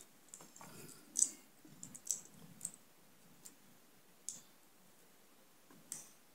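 Small clicks and taps from a Garmin Fenix 5X smartwatch's plastic case and internal module as they are handled and pressed together during reassembly. About half a dozen sharp clicks come at uneven intervals, the loudest about a second in, with faint handling noise between them.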